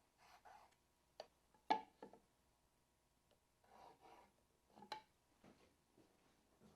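Faint handling sounds of a combination square with a centre head against wood: a few light clicks and knocks, the sharpest about two seconds in, and two short scratchy strokes as lines are marked.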